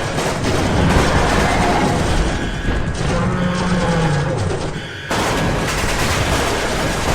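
Sustained rapid gunfire and explosions, a battle sound effect, dipping briefly and coming back abruptly about five seconds in.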